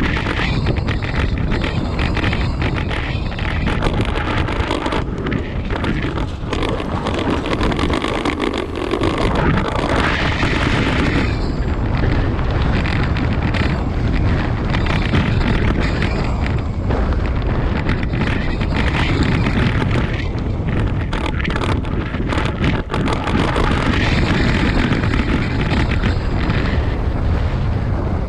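Wind buffeting the microphone of a camera riding on a moving bicycle, a steady rumbling noise mixed with city street traffic.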